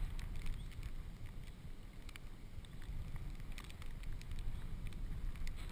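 Steady low rumble of river water sloshing and buffeting, picked up by a GoPro strapped to a dog's back as the dog moves through the water, with scattered small splashes and clicks.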